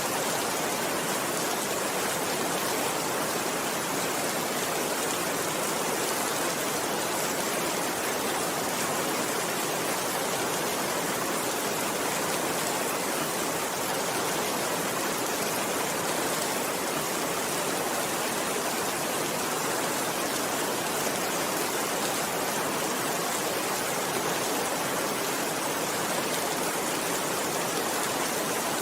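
Steady heavy rainfall, an even, unbroken hiss with no thunder and no single drops standing out.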